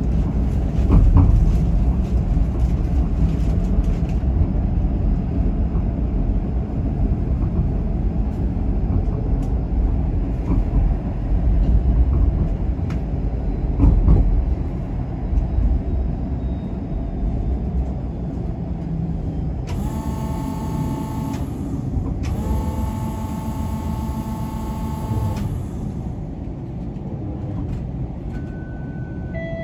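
Interior noise of a moving TTC transit vehicle: a steady low rumble with a few knocks in the first half. About 20 seconds in come two stretches of steady high-pitched tone, a second and three seconds long.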